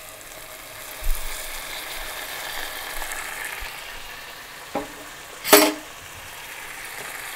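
Tomato-onion gravy sizzling in a pan on the stove as coconut milk is poured in, a steady hiss. A light knock about a second in and a louder sharp knock about five and a half seconds in, which is the loudest sound.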